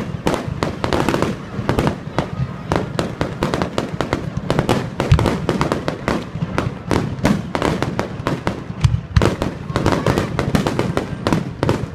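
Fireworks finale barrage: a rapid, unbroken run of aerial shell bursts and bangs, many a second, with a deeper boom standing out now and then.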